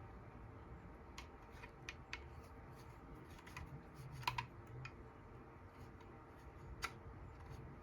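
Faint scattered light clicks and taps over quiet room tone, the sharpest about four seconds in and another near seven seconds.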